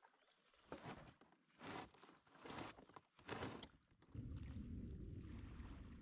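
Canoe paddle strokes swishing through the water, four of them a little under a second apart. About four seconds in, a steady low rumble sets in.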